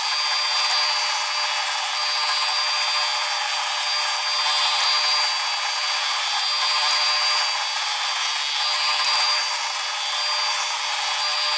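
Benchtop edge belt sander running with a steady high whine while a plywood board's edge is held against the moving belt and sanded smooth.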